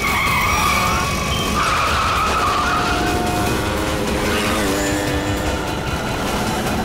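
Motorcycle and auto-rickshaw engines running at speed, with tyres squealing in the first couple of seconds.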